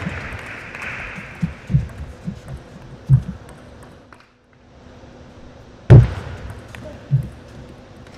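A table tennis rally: a string of sharp knocks from the ball on rackets and table and players' feet thumping on the floor, with a loud thump about six seconds in. Thin applause fades out at the start.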